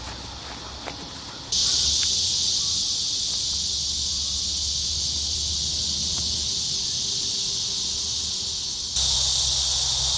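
Cicadas buzzing in a steady, high chorus. It is faint for the first second and a half, then cuts in suddenly at full strength.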